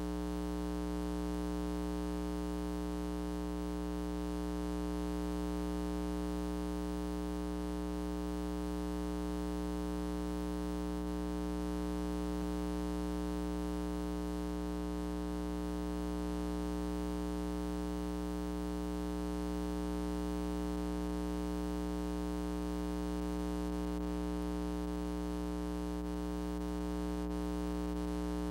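Steady electrical mains hum with a buzzy row of overtones, unchanging throughout and with no other sound over it.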